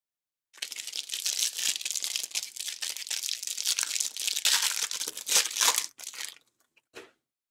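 Plastic wrapper of a hanger pack of Topps baseball cards being torn and crinkled off, stopping about six seconds in; a brief rustle near the end.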